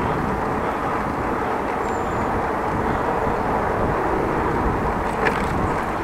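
Steady rush of wind on the microphone and tyre rolling noise from a bicycle being ridden.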